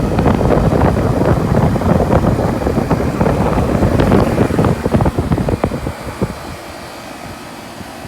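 Air buffeting the microphone over a running 2005 Goodman 4-ton central air conditioner outdoor unit; the buffeting dies down about six seconds in, leaving the unit's steady hum.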